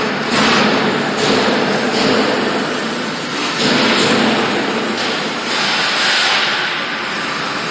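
Stainless steel sheet being rolled into a cone on a cone rolling machine: continuous noise of the sheet flexing and scraping through the rolls, swelling and fading every second or so.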